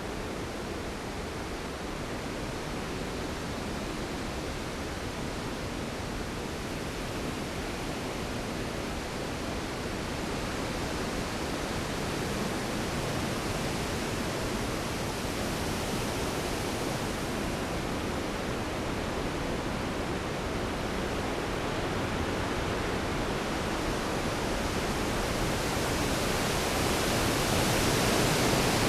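Storm sound effect: a steady rushing hiss of rain and wind that grows slowly louder, swelling brighter near the end.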